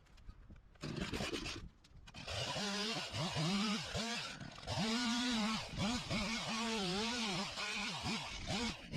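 Two-stroke chainsaw running and revving up and down, its pitch repeatedly rising and falling, as though it is cutting wood, from about two seconds in. A short rough noise comes about a second in.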